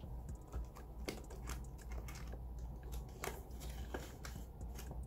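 Scattered light clicks and soft plastic crinkles as polymer banknotes are slid into a clear plastic binder pocket and the binder's plastic pages are turned.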